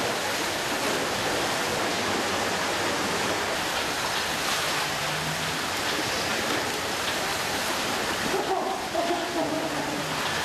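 Water splashing and churning steadily in a round plastic tank as a large nurse shark thrashes in it.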